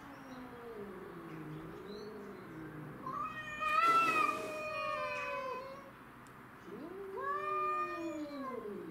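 Domestic cats caterwauling in a fight standoff: long, low, wavering yowls that slide up and down in pitch. About three seconds in a higher yowl comes with a short harsh hiss, and near the end another yowl rises and then falls away.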